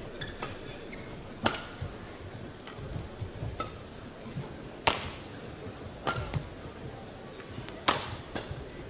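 Badminton rally: racket strings striking a feather shuttlecock with sharp cracks every one to three seconds.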